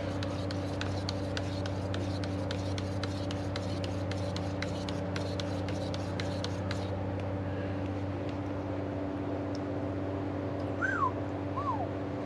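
Steady machine hum, with evenly spaced ticking that stops about seven seconds in. Near the end come two short, high, falling whines.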